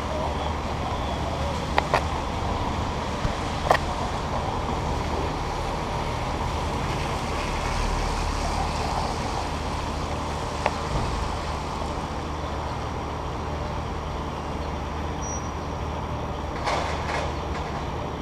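Cable car waiting at a wet street intersection: a steady low hum and rumble, typical of the haul cable running in the slot under the street, with a few sharp clicks and knocks from the car.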